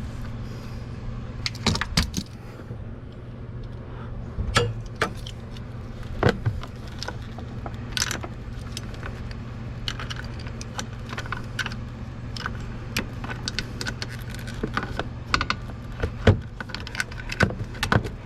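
Metal hand tools clinking: a socket and wrench knocked and fitted against a nut on a utility vehicle's frame in irregular sharp clicks, over a steady low hum.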